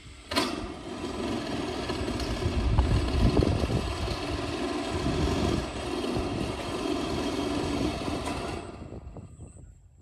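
Cordless drill motor running under load as it drives a screw into a corrugated galvanized steel roof sheet. It starts suddenly, runs for about eight seconds, and dies away near the end.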